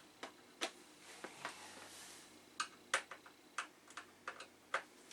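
About a dozen sharp clicks and taps at irregular spacing, as hard plastic and metal computer parts are handled, the busiest stretch coming past the middle.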